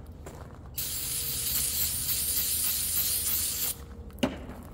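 Aerosol spray can spraying in one continuous hiss for about three seconds, onto a rag to clean a hydraulic cylinder rod, then a sharp knock as the can is set down.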